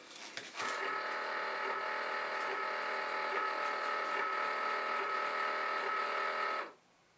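Cricut Maker cutting machine's motors running a steady whine for about six seconds as the machine starts up after being switched on, then cutting off abruptly. A few light clicks come just before it.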